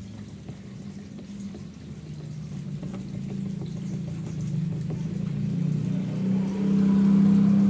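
A low mechanical hum that grows steadily louder and is loudest near the end, over the faint scrubbing of a cloth rubbed on a scooter's plastic body panel.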